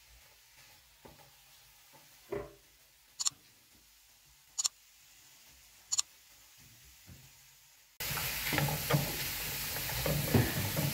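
Chicken and vegetables sizzling in butter in a frying pan while a wooden spoon stirs and scrapes them around. The sizzle starts abruptly about eight seconds in, after a near-quiet stretch broken by a few sharp clicks.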